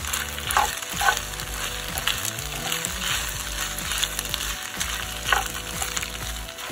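Spaghetti and frozen basil sizzling in a hot oiled pan as they are tossed and stirred, with scraping and a few sharp clacks of the utensil against the pan, the loudest about a second in and again about five seconds in.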